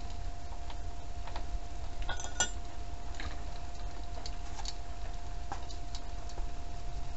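Scattered light metal clicks and clinks of a wrench working on the engine's mounting hardware, with a brighter ringing clink about two seconds in. A steady faint hum runs underneath.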